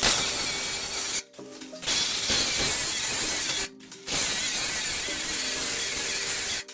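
MIG welder crackling in three bursts of one to two and a half seconds each, with short pauses between: stitch-welding a new steel front panel onto a car body.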